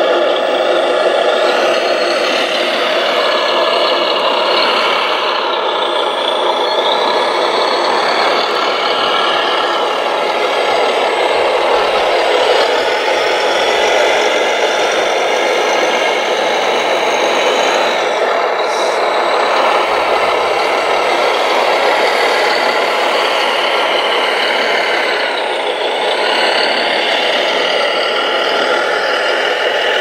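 Radio-controlled scale wheel loader working gravel: a steady mechanical whine and engine-like hum whose pitch rises and falls several times as it drives and works its bucket.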